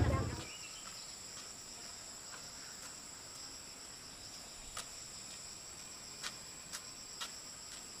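Faint, steady, high-pitched insect drone from the surrounding vegetation, with a few light footsteps on a dirt track in the second half. Street noise from a busy market cuts away in the first half second.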